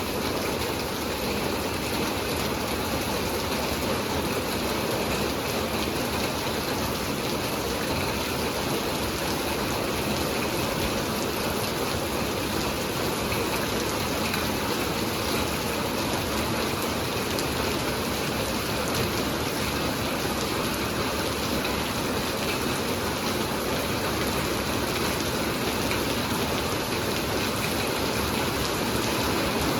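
Steady heavy rain falling on the ground and surfaces, an even, unbroken hiss.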